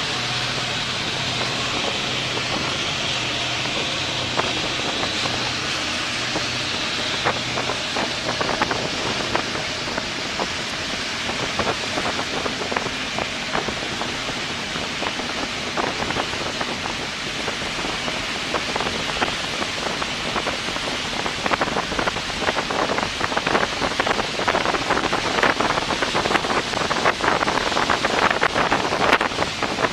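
Austal 40 catamaran fast ferry passing at speed: a steady engine drone for the first seven or eight seconds over a rushing hiss of water and wind on the microphone. In the last third, splashing water grows louder and choppier.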